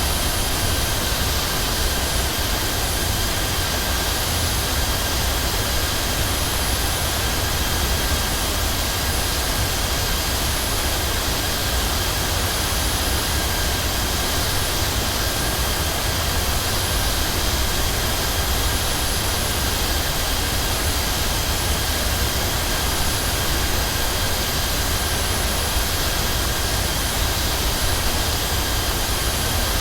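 Jet airliner cabin noise in flight: a steady low engine drone under a constant rush of air, with faint steady whining tones above it.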